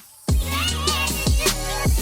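Background music with a steady beat that drops out briefly at the start.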